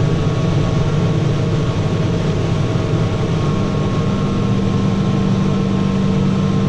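Tractor engine running steadily under load, a constant low drone with a faint steady whine above it.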